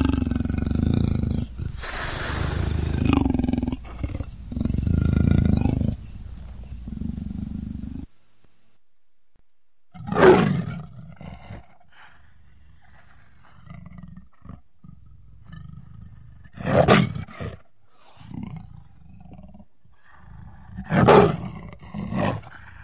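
A big cat growling low and steadily for about eight seconds, then three loud roars several seconds apart, with softer growls between them.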